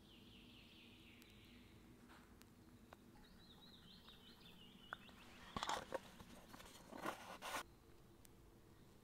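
A small bird singing quick falling trills twice. Then, a little past halfway, two short bursts of rustling and scraping as ground coffee is shaken from a tin into a camp kettle.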